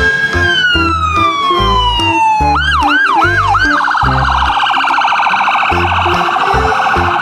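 Ambulance-style electronic siren. It opens with one long wail that slides down in pitch, then gives four quick whoops, then settles into a fast warbling yelp. Background music with a steady beat plays underneath.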